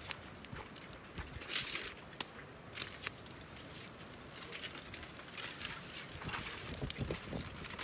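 Wood fire crackling under the pan with a few sharp pops, then aluminium foil crinkling and rustling near the end as it is laid over the paella pan.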